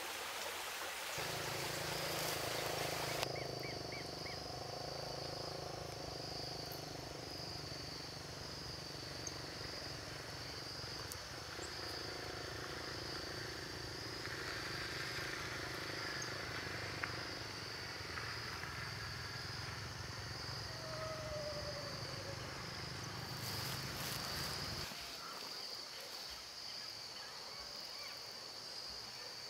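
Insects chirping in a steady, high, pulsing trill over a low hum. The rush of running water fades out in the first few seconds, and the hum stops near the end.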